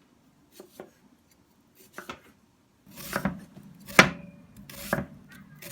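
Kitchen knife slicing an onion on a cutting board: a few light strokes, then quicker, louder cuts with one hard knock of the blade on the board about four seconds in.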